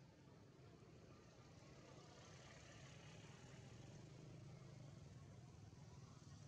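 Near silence: only a faint, steady low hum with a light hiss.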